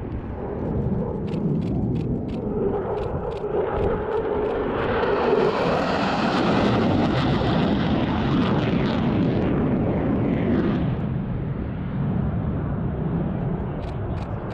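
Military jet flying low past, its noise swelling over the first few seconds, loudest around the middle, then fading with a falling pitch after about ten seconds. A run of short sharp clicks near the start and again near the end.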